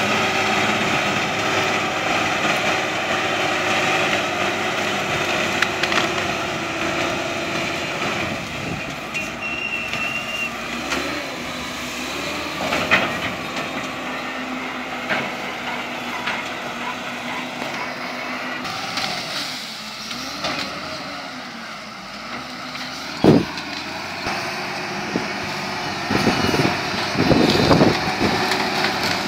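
Heli ZL35E wheel loader's diesel engine running under load, its note rising and falling repeatedly as the machine pushes brush. There is a sharp knock a little past the middle and a cluster of louder knocks near the end.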